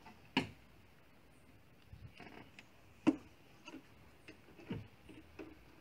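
Scattered clicks and knocks of hand tools and hard plastic and metal engine parts being handled in an engine bay, with three sharper knocks about half a second, three seconds and nearly five seconds in, between smaller ticks.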